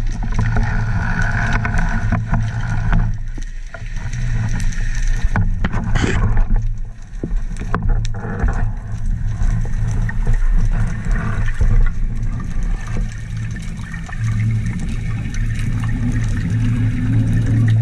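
Underwater sound picked up through a camera housing: a steady low rumble of water moving around the camera and diver, with scattered clicks and knocks and a short hiss about six seconds in.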